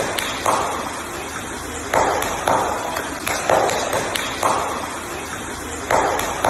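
A seal at the water's surface huffing short breaths, one every second or so, over a steady rush of water.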